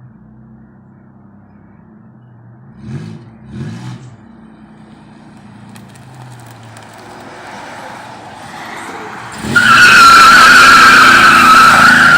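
Pontiac Bonneville's 3800 V6 idling with two short blips of the throttle, then revving harder until the tyres break loose in a loud, steady squeal for the last few seconds, freshly tuned up.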